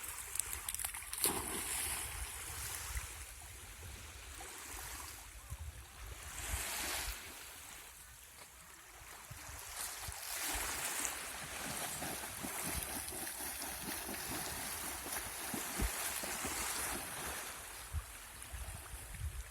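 Sea water washing and splashing, the rush rising and falling every few seconds, with wind rumbling on the microphone.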